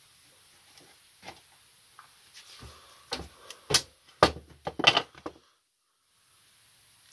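Handling noises: a run of sharp knocks and clicks, densest and loudest between about three and five seconds in, then cutting off abruptly.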